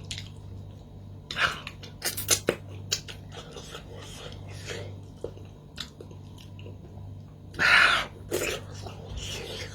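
Close-up chewing: irregular crunches and wet smacks, one louder crunch about eight seconds in, over a steady low hum.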